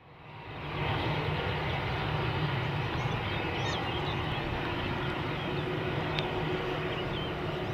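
Airbus A321-200 airliner's jet engines at low taxi power: a steady rumble with a faint low hum, fading in over the first second. A few faint high chirps sound now and then above it.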